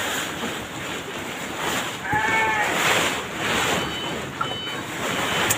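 A goat bleats once about two seconds in, a short call that rises and falls, over a steady background hiss.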